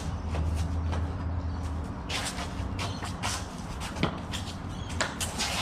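Feet shuffling and scuffing on the ground in quick sparring footwork, with a couple of sharp knocks about four and five seconds in. A low rumble runs under the first two seconds.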